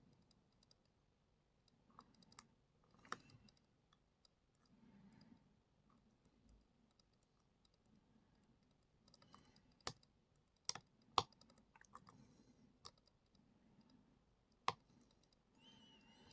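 Faint, scattered clicks and light scraping of a lock pick and tension wrench working the pins inside a Brady Abus 71/40 plastic-bodied lockout padlock. A few sharper clicks stand out, a cluster around the middle and one more a little later.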